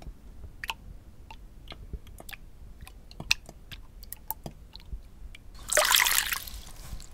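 Scattered light clicks and drips, then a short loud splash of liquid about six seconds in.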